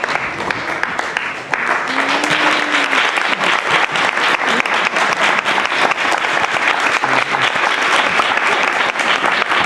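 Audience applauding steadily, dense clapping throughout, with a brief dip about a second and a half in.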